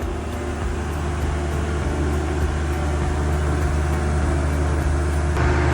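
Large diesel engines running steadily at the drilling rig, a deep even hum. It grows a little louder and brighter near the end.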